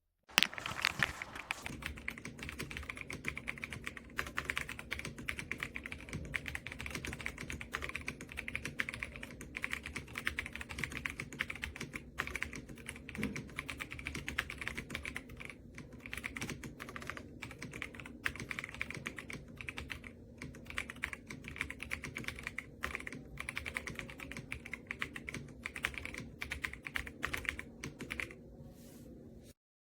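Continuous fast typing on a Royal Kludge R75 gasket-mounted 75% mechanical keyboard: a dense, unbroken run of keystrokes that starts suddenly and cuts off abruptly near the end.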